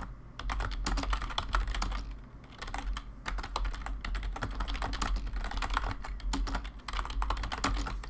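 Typing on a computer keyboard: fast runs of key clicks with short pauses about two and three seconds in.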